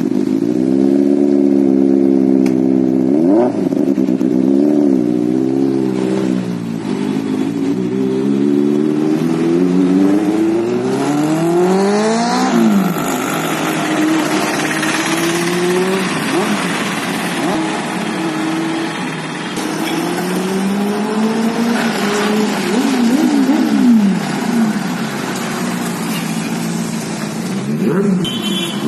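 Benelli 600i inline-four motorcycle engine with a loud aftermarket exhaust, being revved over and over, its pitch rising and falling. About twelve seconds in there is a sharp rising rev, and the exhaust sounds harsher from then on.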